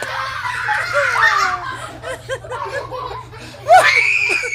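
People laughing hard: a quick run of short "ha-ha" laughs, then a loud high squeal near the end.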